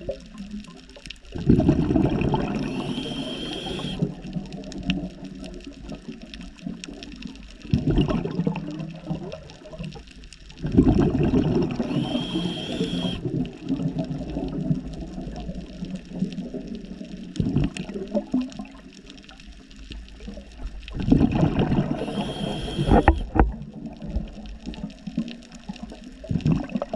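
Scuba diver breathing through a regulator underwater: a hissing inhale with a faint whistle, then a gush of exhaled bubbles. Three breaths come about ten seconds apart, with a low steady hiss between them.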